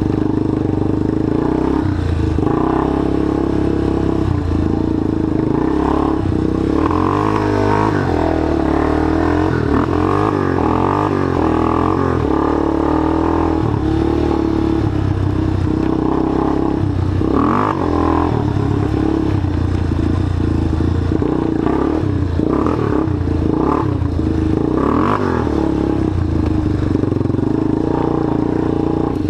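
Small ATV engine running continuously as the quad is ridden, its revs rising and falling, with occasional clatter.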